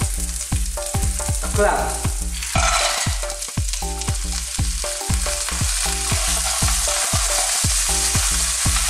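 Oil sizzling in a frying pan as shallots, garlic, ginger and lemongrass fry. About two and a half seconds in, a bowl of fresh clams is tipped in with a brief clatter of shells, and a wooden spoon stirs them with repeated knocks against the pan.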